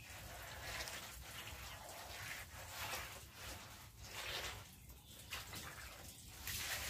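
Wet hand strokes swishing over a freshly mud-plastered earthen floor and clay stove, about one smear a second, with a louder wet slosh near the end as the hand dips into a bucket of mud-water.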